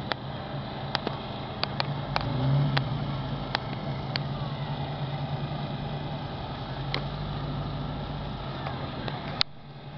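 Classic car engines idling at a drag start line, a Volvo 122S beside an Opel GT, with a brief rise in revs about two and a half seconds in. A few sharp clicks are scattered through, and there is a louder click near the end.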